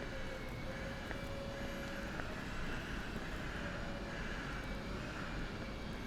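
Steady urban background noise: a low rumble of distant engines with a faint steady whine over it.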